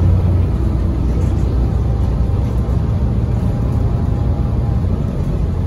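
Gillig BRT transit bus under way, heard from inside the cabin: a steady low rumble of engine and road noise.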